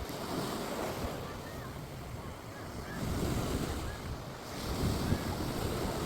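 Sea surf washing onto the beach, swelling and breaking a few times, with wind buffeting the microphone.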